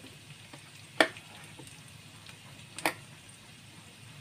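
Chopped garlic sizzling faintly in a little oil in a nonstick frying pan on a low flame, with two sharp clicks about two seconds apart.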